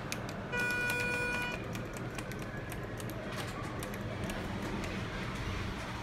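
Elevator chime: one pitched electronic tone starting about half a second in and lasting about a second, over a steady low hum with scattered light clicks.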